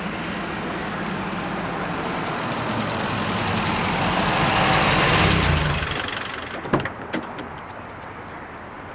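A motor vehicle driving, its engine and road noise swelling to a peak about five seconds in and then falling away, followed by a few sharp clicks.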